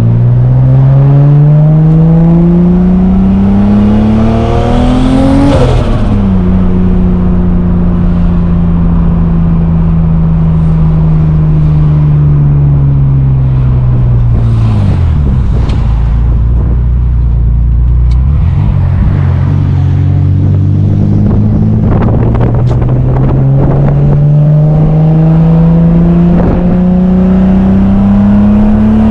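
Turbocharged BMW M50 inline-six in an E36 being driven hard: the revs climb for about five seconds, drop sharply, fall away slowly, then climb again in a second pull from about two-thirds of the way in.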